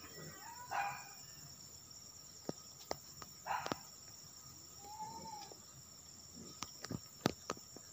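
Faint night ambience: insects trilling steadily, with a few faint short animal calls and several sharp clicks scattered through.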